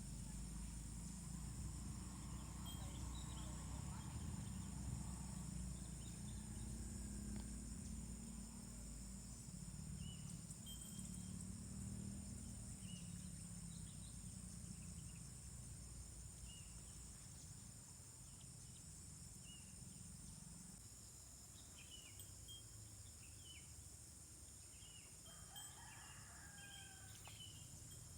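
Rural outdoor ambience: a steady high insect drone, with scattered short bird chirps throughout and a low rumble that fades over the first two-thirds. A distant rooster crows near the end.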